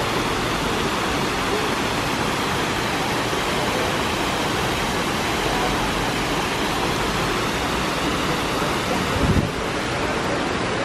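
Water spilling steadily over a low tiered stone cascade into a shallow pool, a continuous splashing rush, with a brief low bump about nine seconds in.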